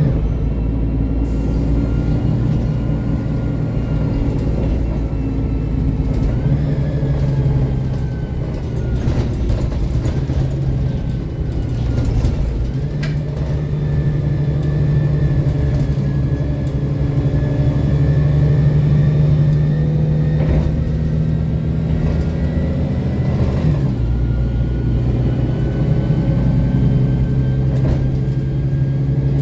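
Mercedes-Benz Conecto city bus running under way, its rear-mounted OM 457 hLA straight-six diesel heard from inside the cabin. The engine note rises and falls several times as the bus pulls and eases off, with a higher whine following it, and a few rattles come around ten seconds in.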